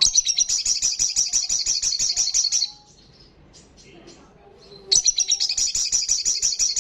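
Olive-backed sunbird singing a fast, high, rattling trill in two bursts: one of about two and a half seconds at the start, and a second starting about five seconds in.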